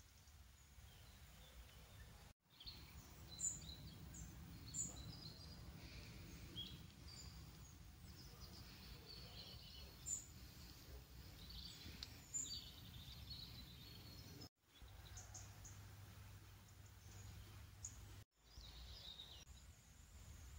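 Faint outdoor ambience of small songbirds chirping, with short high calls scattered through it, over a low steady rumble. The sound drops out briefly three times where the shots are cut together.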